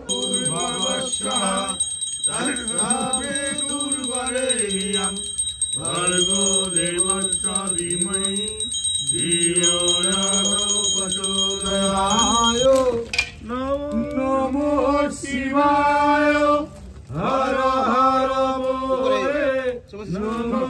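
Hindu devotional singing: a voice holding long, wavering sung notes over musical accompaniment.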